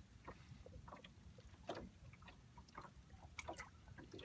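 Near silence: a faint low rumble with scattered small clicks and taps.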